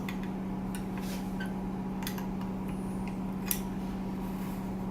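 A few light metallic ticks of a spanner wrench working the lock's threaded outside bearing as it is tightened, over a steady low hum.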